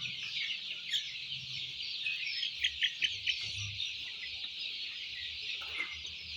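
A flock of five-week-old chickens in a poultry house chirping and clucking, many birds overlapping in a steady high chatter.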